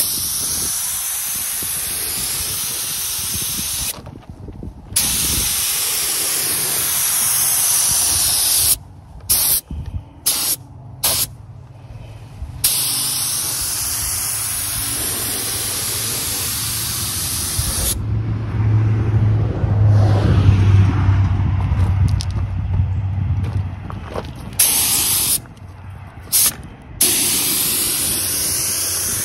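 Air-fed gravity spray gun hissing as it sprays clear coat, the trigger held for long passes with several short breaks between them. A low steady hum grows underneath and is loudest about two-thirds of the way through.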